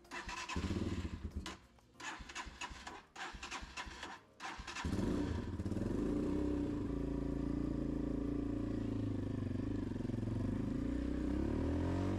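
250cc dirt bike engine being started: several short spells of cranking, then it catches about five seconds in and idles steadily.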